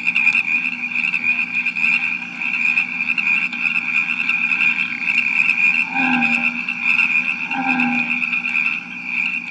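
Bullfrog croaking twice, about six seconds in and again just before eight seconds, over a steady high chorus of crickets. It is a sound-effects recording played from a vinyl record.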